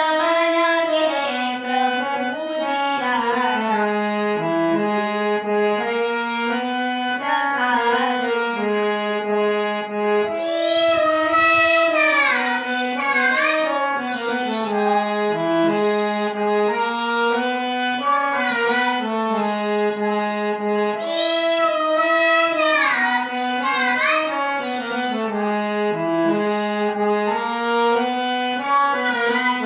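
Music from a devotional prayer song, its melody carried by a reed instrument in held notes that step up and down, with quick ornamented runs twice.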